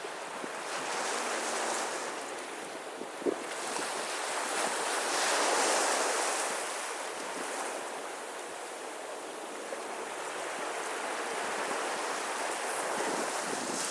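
Sea waves breaking and washing up a beach: one swell about a second in, a bigger wave breaking around five or six seconds in and then running back, with a short tick about three seconds in.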